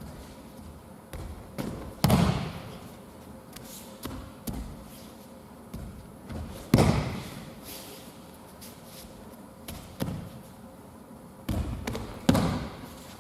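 Heavy thuds of aikido throws and breakfalls landing on tatami mats, several a few seconds apart, each echoing briefly, with the loudest about seven seconds in and a quick run of them near the end.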